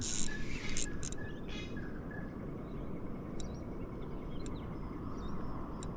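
Steady low outdoor background noise by the water, with faint bird calls about halfway through and a few light clicks.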